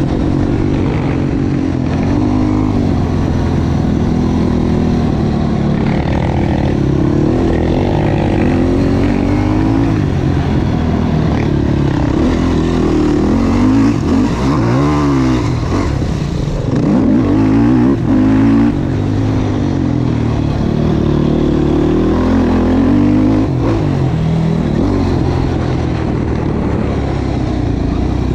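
Yamaha YFZ450 quad's single-cylinder four-stroke engine being ridden hard, its pitch climbing and dropping again and again as the throttle is worked and gears change.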